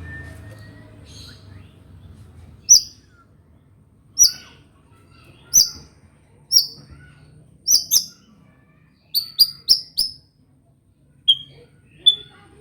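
White-rumped shama (murai batu) giving short, sharp, high chirps, one about every second, with a quick run of four in the second half.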